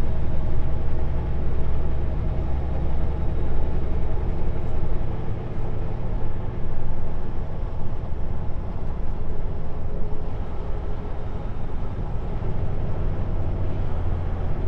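Kenworth W900L semi truck's diesel engine and road noise heard from inside the cab while driving: a steady low drone whose engine note drops about four seconds in and comes back stronger near the end.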